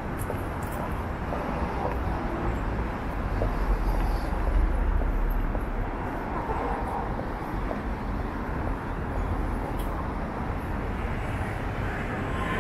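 City street ambience of road traffic: a steady low rumble of passing vehicles that swells about four to five seconds in as a vehicle goes by.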